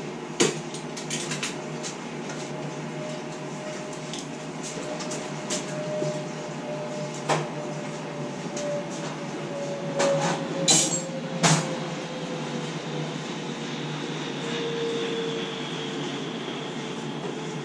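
Steady roar of a jet aircraft passing over, its engine tone falling slowly in pitch, with scattered clicks and knocks of objects being handled.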